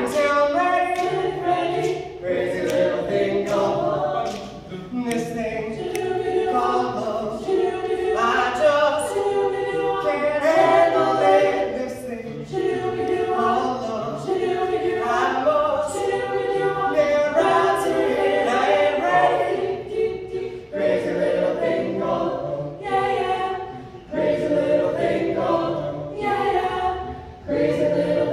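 High school a cappella group of mixed male and female voices singing in harmony, a lead singer at the microphone over the backing voices.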